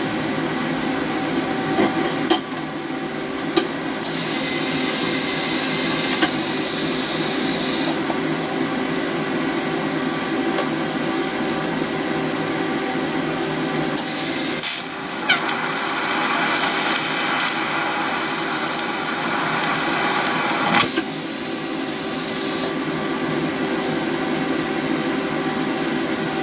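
Stick-welding arc from a 309 rod laying tack welds: several short bursts of loud hiss, a pair about four seconds in, a brief one near the middle and a longer run of about six seconds after it, over a steady background hum.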